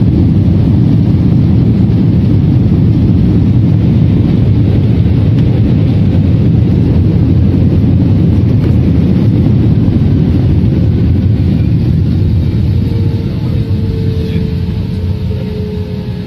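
Loud, steady rumble inside a jet airliner's cabin as it rolls down the runway after landing. The rumble dies down over the last few seconds as the plane slows, leaving a faint, slightly falling whine from the engines.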